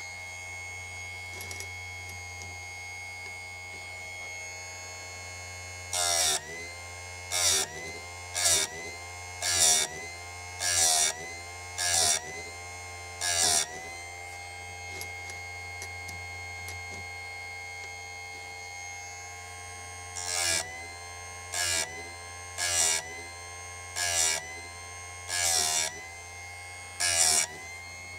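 Electric chain-sharpening grinder running with a steady whine. The grinding wheel is brought down onto the saw-chain teeth about once a second, each contact a short loud rasp that drags the motor's pitch down. There are seven strokes, then the motor runs free for about six seconds, then six more strokes.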